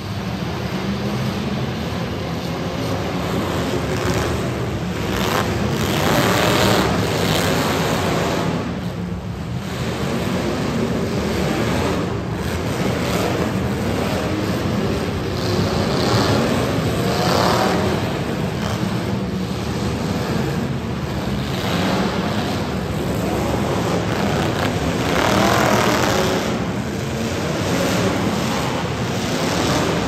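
Several demolition derby cars' engines running and revving together, swelling louder a few times.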